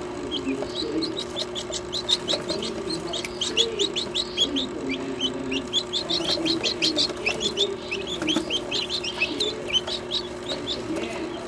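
Newly hatched lavender guinea fowl keets peeping: short, high-pitched chirps come several a second, close together and overlapping, over a steady low hum.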